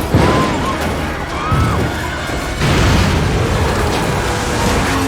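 Film sound-effects mix of a bird-swarm attack: heavy booming crashes land about three times, over dramatic film score. A few short gliding cries come in the first second and a half.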